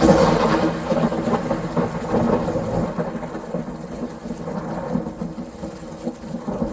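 A sudden loud burst at the start that rumbles away over a steady hiss and a low droning tone, in the manner of a thunderclap with rain.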